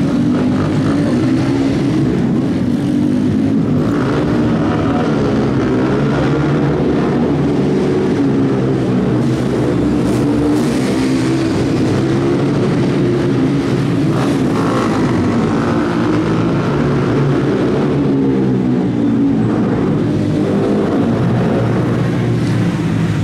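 Several small four-stroke youth ATVs (manual-shift mini quads) racing together, their engines overlapping and rising and falling in pitch as they rev through the gears.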